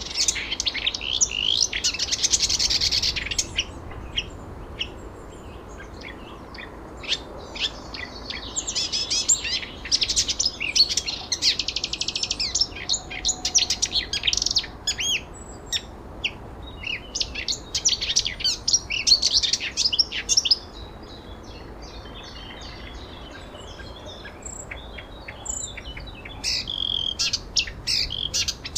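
Songbirds singing and chirping: quick high chirps and trills in long bouts, with a quieter spell about three-quarters of the way through, over a faint steady background hiss.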